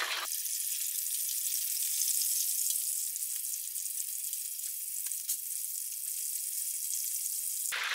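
Battered fish fillets deep-frying rapidly in hot oil, near 190°C: a steady sizzling hiss with a few faint crackles. This is the second, crisping fry of the battered fish.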